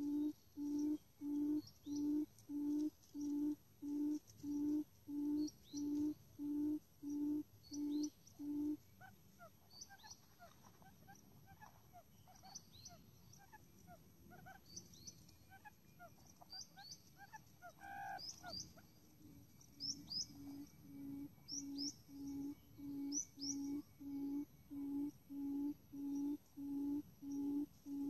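Quail call played as a trapping lure: a low hoot repeated about twice a second, stopping about 9 seconds in and starting again about 20 seconds in. While it is paused, small birds chirp with quick, high notes that drop in pitch.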